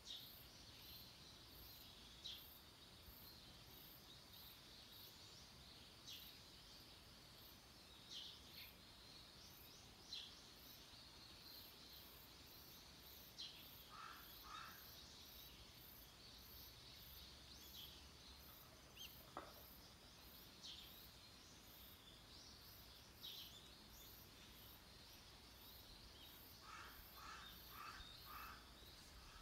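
Faint outdoor ambience, close to silence: birds calling now and then, with a short run of repeated calls twice, over a high, evenly pulsing chirp from an insect.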